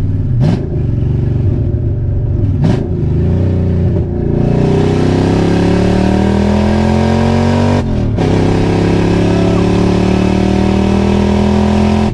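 Nissan VH45 V8 swapped into a 300ZX, running on open headers with no exhaust, heard from inside the cabin under hard acceleration. After brief breaks in the first few seconds, the engine note climbs steadily, drops at a gear change about eight seconds in, then climbs again.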